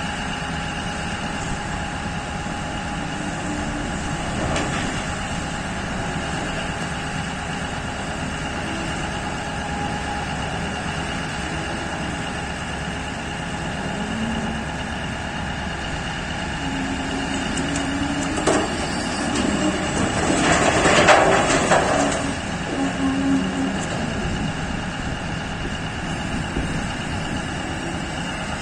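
P&H 4100 electric mining shovel working at close range: a steady machinery hum with high whining tones from its electric drives and an engine note underneath. About two-thirds through comes a loud rattling crash lasting about two seconds, iron ore pouring into the haul truck's bed.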